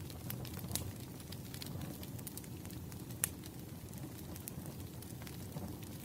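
Wood fire crackling: scattered sharp pops and snaps over a steady low rumble, the loudest pop about three seconds in.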